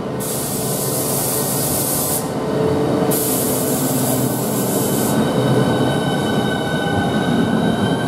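Southeastern Class 395 Javelin electric multiple unit pulling away and accelerating, its traction motors whining in several tones that slowly rise in pitch over the rumble of wheels on rail. Two stretches of loud hiss come in the first five seconds.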